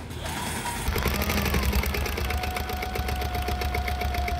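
Sail loft sewing machine stitching at a fast, even rate, about seven stitches a second, from about a second in, with a steady motor whine. It is sewing down the tape on a headsail repair.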